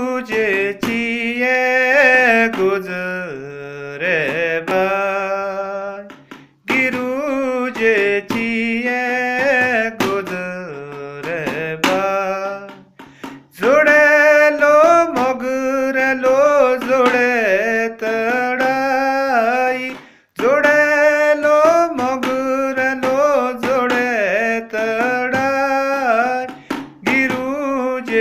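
A man singing a song unaccompanied or nearly so, in long held, gliding phrases, four of them, with short breaths between.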